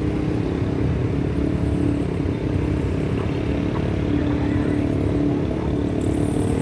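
Steady rumble of road traffic, motorcycles among it, crossing the bridge overhead, with engines swelling as they pass.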